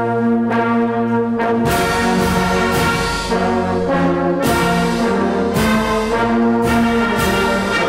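Brass band music playing slow, sustained chords that change every second or so.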